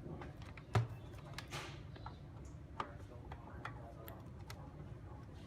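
Irregular light clicks and taps of small hard objects being handled, with one louder knock a little under a second in and a short scraping burst about half a second later.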